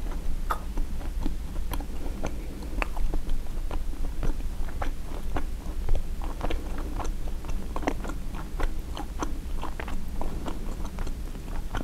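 Close-miked chewing of a turkey sausage, egg and cheese bagel sandwich: many small irregular mouth clicks from biting and chewing.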